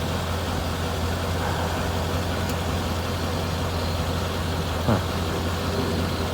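Mercedes CLK55 AMG's V8 idling steadily, with a single short clunk from the rear about five seconds in. The clunk comes only at idle with the car standing still, and the owner suspects it comes from the exhaust.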